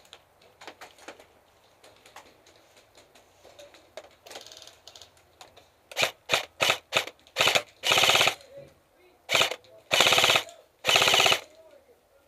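Airsoft gun firing close by: about five quick single shots, then four sustained full-auto bursts of rapid shots, each under about half a second, with faint ticks and clicks before them.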